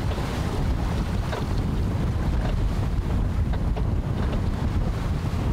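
Wind buffeting the microphone aboard a sailboat under way, a steady low rumble over the wash of the sea.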